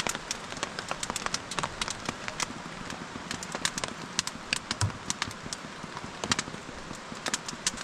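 Rain pattering on a tarp overhead: irregular sharp drops ticking over a steady hiss of falling rain.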